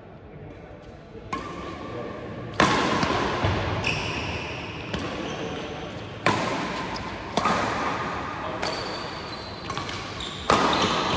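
Badminton rackets striking a shuttlecock in a doubles rally: about seven sharp hits, one every second or two, each followed by hall echo.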